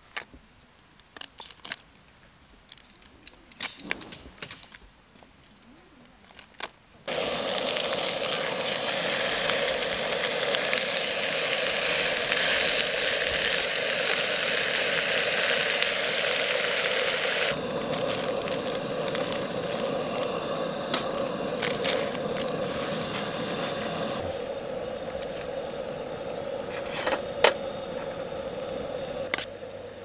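Meat sizzling in a pan on a portable camping gas stove: a loud steady hiss that starts suddenly about seven seconds in and grows quieter in two steps later on. Before it come faint rustling and clicks of plastic food bags being handled.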